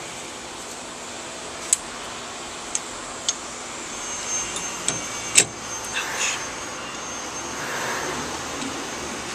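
Scattered sharp clicks and knocks from hands working on the table saw's tilt mechanism with a spray can, the loudest about five seconds in, over a steady fan-like hiss.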